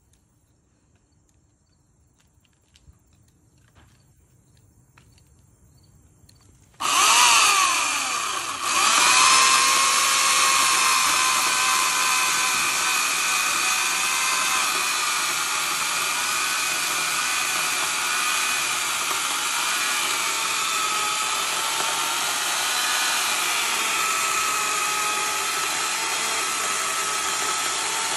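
Sun Joe 14-inch corded electric chainsaw switched on suddenly about seven seconds in, after near silence. It drops out for a moment a second and a half later, then runs steadily at full speed with a high whine.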